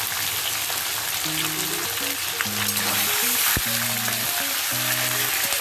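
Raw chicken pieces sizzling as they fry in hot mustard oil in a steel kadai, stirred with a spatula, with one sharp knock near the middle. Background music with held notes comes in about a second in.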